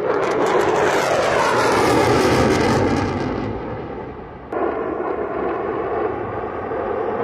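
Fighter jet engine noise in a fast low flyby, the pitch falling as the jet passes and the noise fading away. About four and a half seconds in, a sudden cut brings in another stretch of steady jet engine noise.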